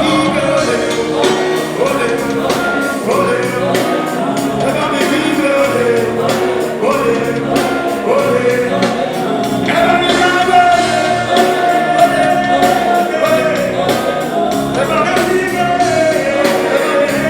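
Live band music with singing over a steady beat, heard from the concert sound system; a long held sung note runs through the middle.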